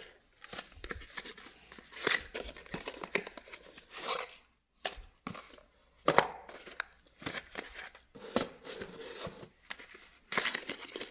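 Small cardboard boxes being handled by hand: irregular rustling, sliding and light tapping as they are picked up and set down, with a box flap being opened near the end.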